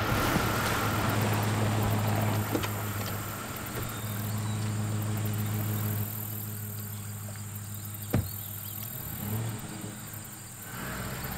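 An engine idling with a steady low hum that eases off about six seconds in. A single sharp click comes about eight seconds in.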